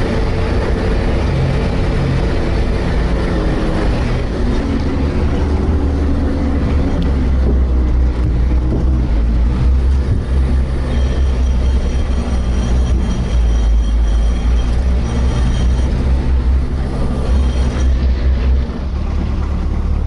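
Off-road vehicle's engine running steadily, a loud continuous low rumble, somewhat louder through the middle, with a faint high whine for a few seconds.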